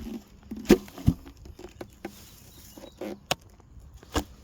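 Four sharp wooden knocks, the two loudest close together about a second in, with light scrabbling and rustling between them, from a wooden beehive being handled.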